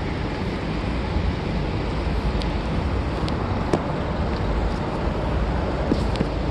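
Steady rush of road traffic, with a few faint clicks.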